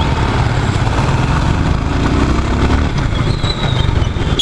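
Suzuki Gixxer motorcycle on the move, its engine running under a steady low rumble of road and wind noise.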